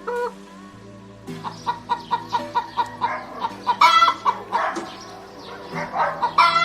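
Short animal calls repeated several times a second, louder about four seconds in and again near the end, over steady background music.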